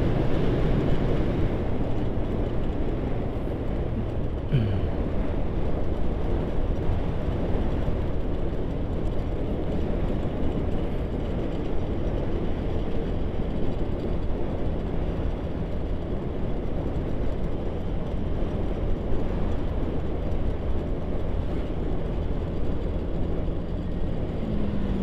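Motorcycle being ridden along a road: a steady rush of wind over the microphone with the engine's drone underneath, and a short falling whine about four and a half seconds in.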